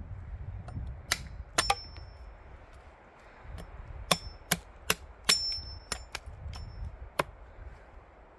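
Martindale machete chopping into wood: about ten sharp strikes in two quick runs, several leaving a short high metallic ring from the blade.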